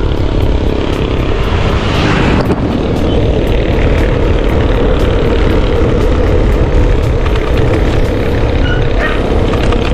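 Wind buffeting the microphone of a camera on a moving bicycle: a loud, steady rumble with a hiss above it.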